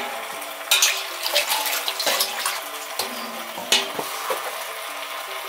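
Metal kitchenware clinking and knocking a few times, the loudest knock near the end as a metal tray is picked up, over a steady hiss.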